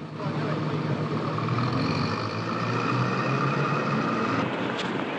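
Motor taxis driving past on a cobbled street: a steady engine hum with traffic noise, and a faint high whine that comes in about a second and a half in and stops near the end.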